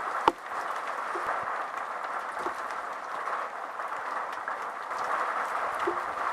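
Steady heavy rain falling, with scattered drips and one sharp knock about a third of a second in.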